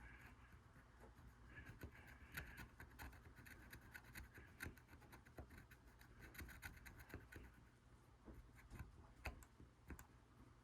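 New X-Acto blade scraping the clear coat out of a plastic pinball star rollover: faint, irregular little crunches and scratches as the clear flakes off.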